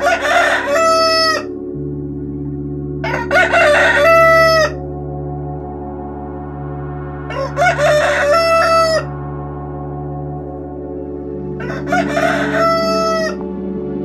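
Rooster crowing four times, evenly spaced about four seconds apart. Each crow lasts about a second and a half and ends on a long held note. A steady low drone runs underneath.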